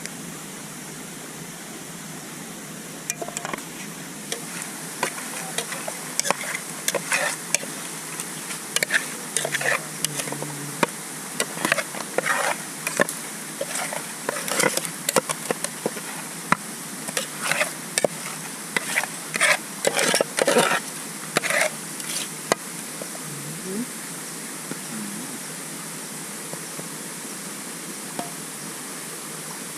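Irregular clicks, taps and scrapes of hands and a utensil working over fish as it is seasoned, from about three seconds in until a little past the middle, over the steady rush of a waterfall.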